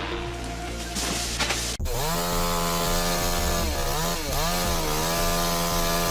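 About two seconds in, after a cut, a two-stroke chainsaw runs at high revs with a steady, buzzing engine note. Its pitch dips and comes back up twice in quick succession partway through.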